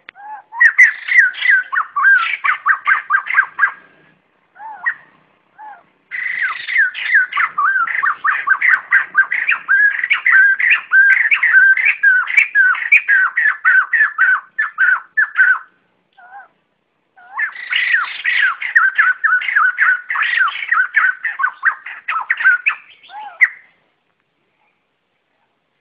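White-crested laughingthrushes giving their loud flock call: three long bouts of rapid, repeated chattering notes, with a few single calls between the bouts.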